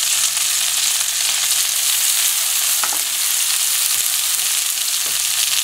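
New York strip steak and chopped vegetables sizzling steadily in oil in a frying pan, with a few faint pops.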